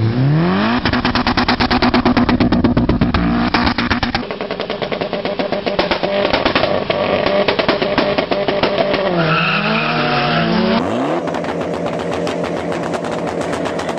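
Mitsubishi Lancer Evolution turbocharged four-cylinders revving, with rapid popping and crackling from the exhaust over the engine note. The pops are backfires: unburnt fuel igniting in the exhaust, which glows with flame.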